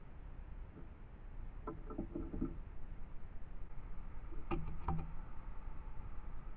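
A few sharp taps and knocks close to the microphone, in a cluster about two seconds in and a louder pair about halfway through, over the trail camera's steady hiss: a magpie pecking at the camera's shelter.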